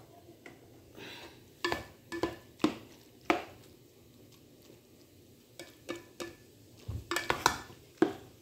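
A plastic spatula stirring cooked macaroni in a metal pot, knocking and scraping against the pot in short, irregular clicks, with a quiet pause of about two seconds midway.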